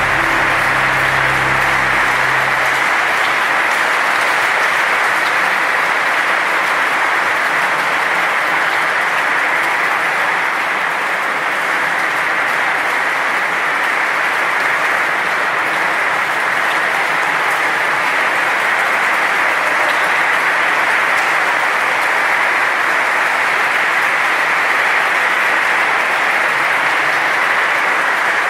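Audience applauding steadily. The last electric guitar note dies away in the first two or three seconds.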